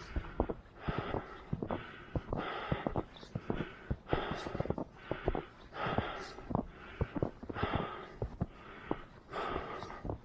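A runner's rhythmic breathing, one breath about every three-quarters of a second, over quick footfalls in snow.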